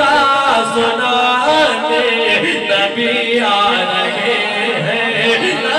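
Male voice singing a naat (Urdu devotional hymn), with long, ornamented melodic lines rather than clear words, over several overlapping voice layers.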